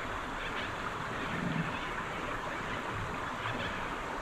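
Small creek running, a steady even rush of water.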